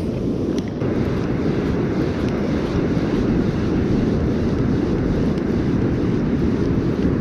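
Steady wind noise buffeting the microphone on a surf beach, with the ocean surf underneath.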